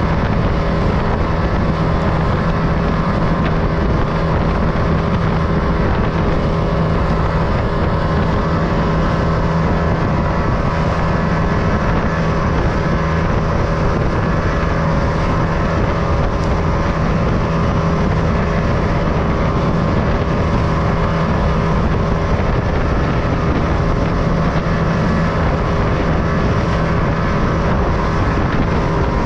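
Small fishing boat's engine running steadily at cruising speed, an even hum over the rush of wind and water, with wind buffeting the microphone.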